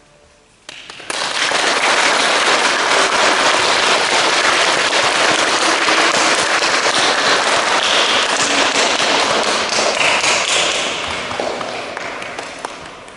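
Audience applauding in a large hall, a dense patter of many clapping hands that starts suddenly about a second in and dies away near the end.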